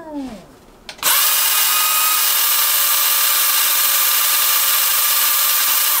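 Ninja blender switching on with a click about a second in and running steadily at full speed, blending toasted dried chiles de árbol with oil.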